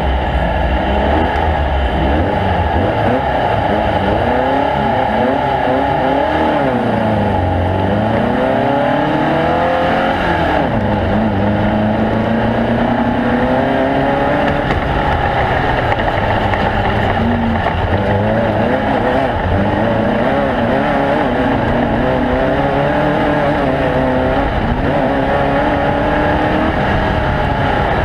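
Engines of off-road race vehicles running hard, several overlapping, their pitch rising and falling as they rev and go past.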